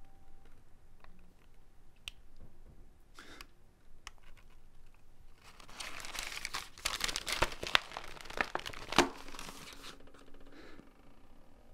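A sheet of paper being crumpled and torn, crackling loudly for about four seconds in the middle with a few sharp cracks, after a few seconds of faint handling.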